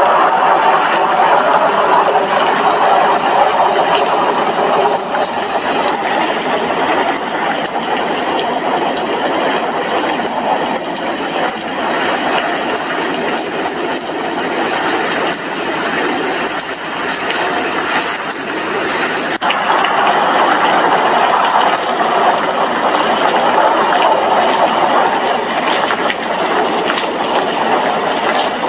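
Heavy rain falling steadily, a loud even hiss that eases slightly midway and swells again about two-thirds of the way through.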